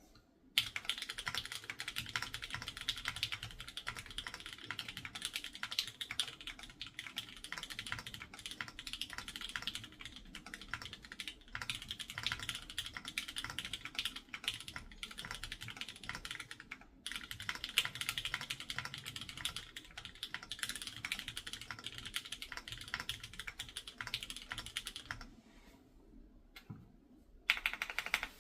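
Fast typing on an Owlab Hellcat Alice-layout custom mechanical keyboard with Gateron Fade switches: a dense, continuous run of keystrokes, with a couple of brief pauses and a longer break a few seconds before the end, after which typing resumes.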